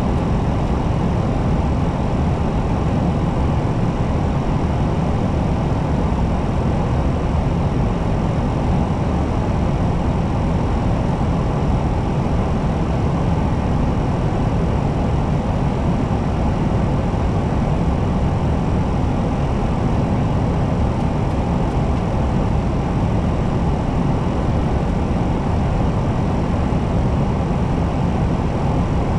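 Steady, low cockpit noise of an Airbus A320 descending on final approach, at an even level with no callouts in it.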